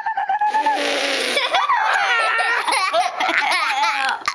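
A young boy laughing hard: a held high squeal at the start, then high-pitched peals of giggling laughter.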